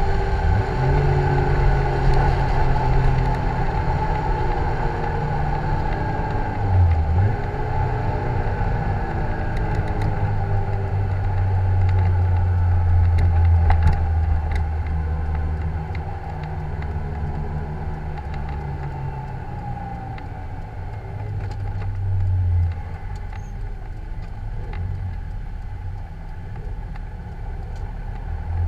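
Lotus Elise 111R's Toyota 1.8-litre VVTL-i four-cylinder engine running at steady, moderate revs, heard from the open cockpit with road and wind noise. It grows quieter from about halfway through as the car slows on the cool-down run off the track.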